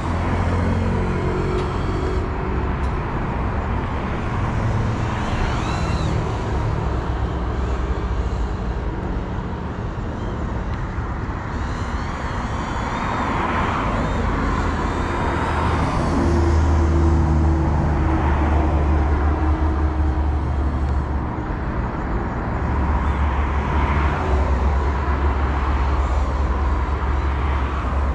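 GEPRC Cinelog 35 FPV drone's motors and propellers whining in the distance, the pitch wavering up and down with the throttle, over a steady low rumble of wind on the microphone.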